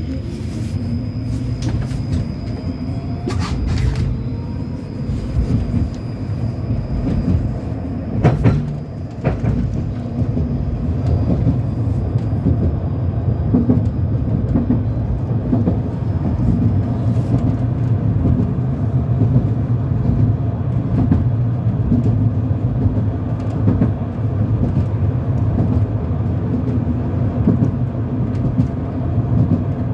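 Cabin sound of a 71-923M Bogatyr low-floor tram running along the line: a steady hum and rumble of the drive and wheels on the rails. A thin high whine fades out about halfway, and a few sharp knocks come around four and eight seconds in.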